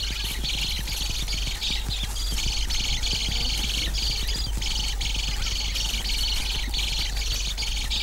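A young hadada ibis begging from its parent with rapid, high-pitched chirping calls that keep up and swell in patches, over a steady low hum.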